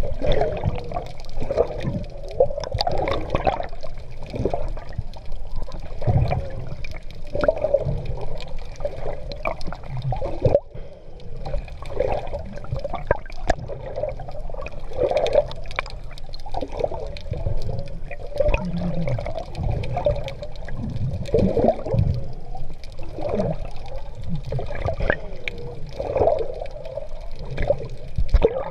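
Sea water sloshing and gurgling around a GoPro carried by a swimmer, in irregular surges every second or two.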